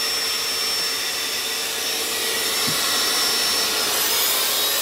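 Electric high-volume air pump running steadily, blowing air through a hose into an inflatable boat's chamber: a steady rushing noise with a hum and a high whistle, and a faint rising whine coming in near the end.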